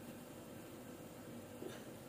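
Quiet stirring of thick, freshly cooked dal with a plastic slotted spatula, over a faint steady hum, with one light tap of the spatula about one and a half seconds in.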